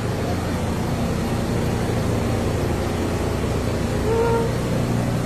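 Steady low hum and rumble of a subway train standing in the station, with a brief higher tone about four seconds in.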